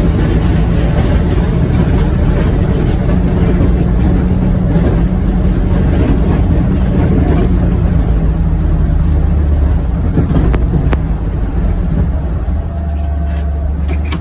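John Deere Gator UVX 835M utility vehicle driving, its engine running steadily with a dense low hum and the noise of travel, easing off a little near the end.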